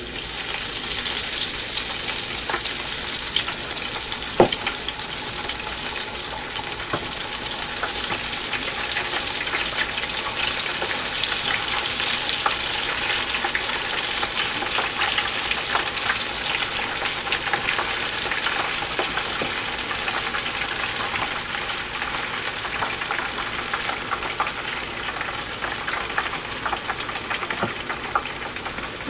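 Breaded potato fries sizzling and crackling in hot oil in an electric deep fryer. The sizzle starts abruptly as the basket goes in and eases slightly over time, with one sharp knock about four seconds in.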